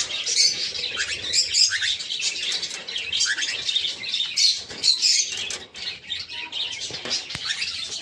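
Many small cage birds in a colony aviary chirping and calling continuously, with short high chirps overlapping one another. A single sharp click comes near the end.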